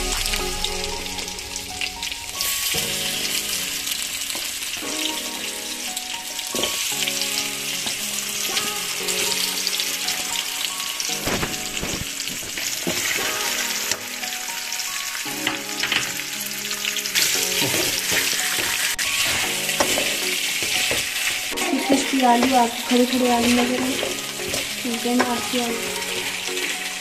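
Thinly sliced potatoes sizzling in hot oil with cumin seeds, a steady high hiss, while a wooden spatula stirs them and now and then knocks and scrapes against the metal pan.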